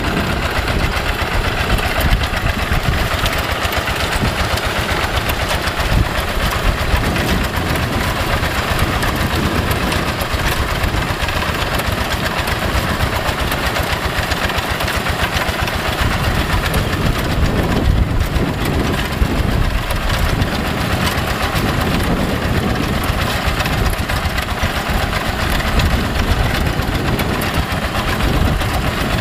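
Yanmar single-cylinder horizontal diesel engine of a two-wheel hand tractor running steadily under load while it plows a flooded paddy, with a fast, even chug.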